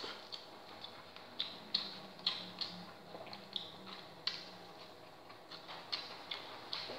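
Close-up eating sounds: chewing and lip smacking heard as irregular short clicks, about two a second.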